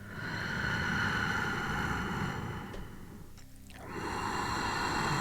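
Slow, deep breathing through the nose close to the microphone. One long breath swells and fades over about three seconds, and a second begins about four seconds in.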